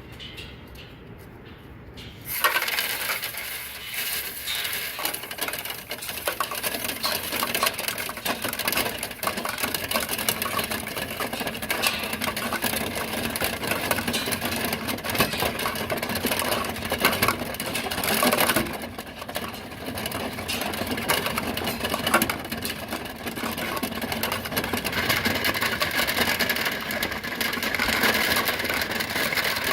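Power-driven rotary dryer-vent cleaning brush spinning and rattling inside the dryer duct, starting about two seconds in and running on with a steady motor noise and constant clattering.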